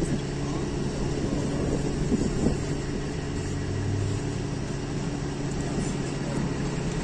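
Engine of a tire-handling lift truck running steadily at idle, with a short knock about two and a half seconds in.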